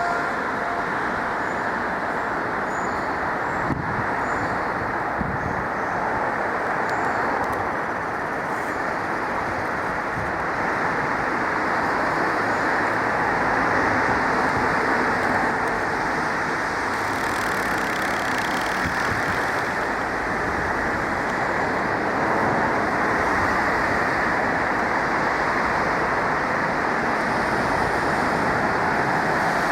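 Steady road traffic noise of cars passing, an even rush that swells slightly after the middle. The last note of the outdoor loudspeaker chime dies away in the first second.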